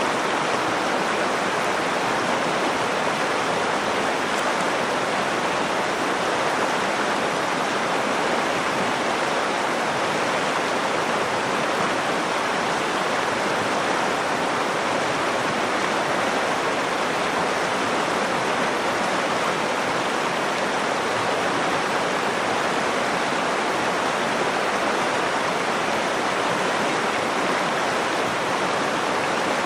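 Nakdong River water flowing over rocks in a steady, unbroken rush.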